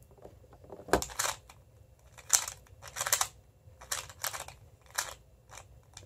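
2x2 speed cube (MoFang Jiaoshi MF2S) being turned fast by hand: plastic clicking and clacking in short bursts every half second or so as layers are turned, with one sharper knock about a second in.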